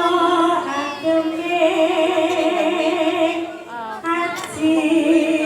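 A female Javanese singer (sinden) singing a bawa, the solo vocal introduction to a gending, in long held notes with wavering ornaments. There is a brief pause for breath about four seconds in.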